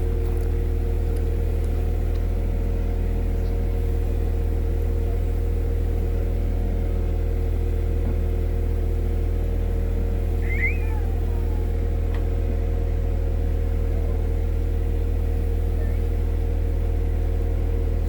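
Komatsu PC120-6 excavator's diesel engine running steadily at an even pitch and level. A brief faint chirp comes about ten seconds in.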